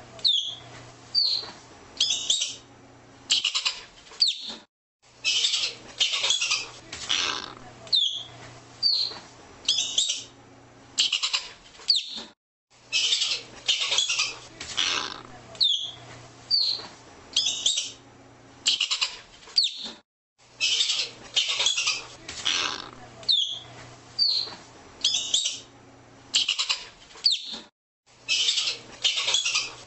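Arctic ground squirrel calling: short, harsh chirps repeated about once a second, each trailed by a small falling squeak. There are brief breaks of silence every seven or eight seconds.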